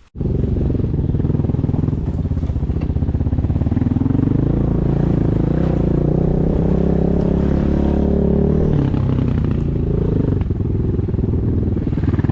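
A vehicle engine running loud and close, its pitch rising and falling as it revs.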